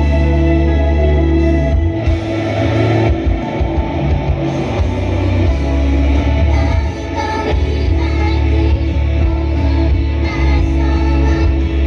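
Idol pop-rock song performed live: loud band backing with guitar and heavy bass, and singing.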